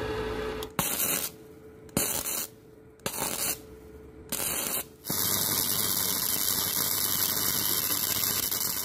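MIG welder arc crackling. It strikes in four short bursts of about half a second each, then runs as a steady weld from about five seconds in.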